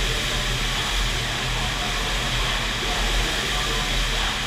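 FlowRider wave machine's pumped sheet of water rushing steadily up the ramp, with a low steady hum underneath.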